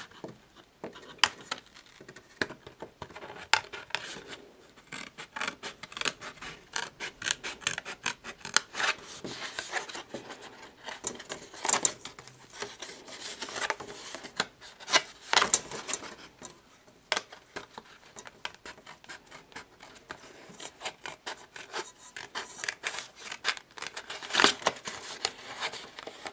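Small curved nail scissors snipping through thick card, many short, irregular cuts, with the card rubbing and rustling as it is held and turned.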